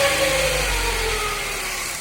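2006 Hyundai Coupe's 2.0-litre four-cylinder engine running as the revs fall off, with a whirring whine that drops in pitch along with them. The whirr comes from an overtight cambelt straining its pulleys.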